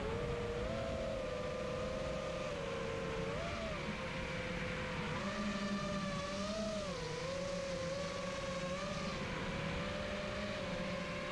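Electric motors and 5-inch props of an FPV quadcopter whining in flight, heard through its onboard GoPro. The pitch wavers up and down with the throttle as the quad comes in to land on a low battery, and the whine stops near the end.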